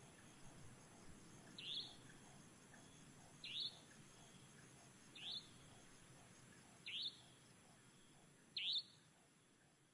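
A pika calling: five short, high squeaks, each rising in pitch, repeated about every 1.7 seconds over a faint background hiss.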